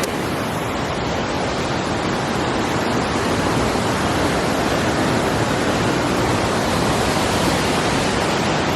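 Waterfall's water rushing and splashing in a steady, loud, unbroken noise.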